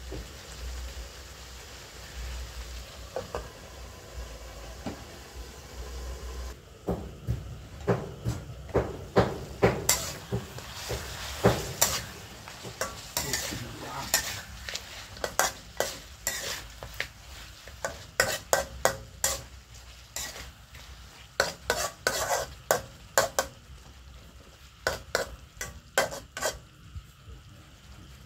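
Frog pieces sizzling in oil in a metal wok. From about six seconds in, a spatula stirs them, clanking and scraping against the pan many times over the sizzle.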